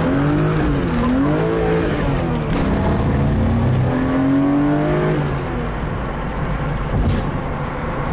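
BMW E36 M3's S52 inline-six accelerating, heard from inside the cabin: the engine pitch climbs and drops back at gear changes several times over the first five seconds, then settles into steady cruising with road and tyre noise.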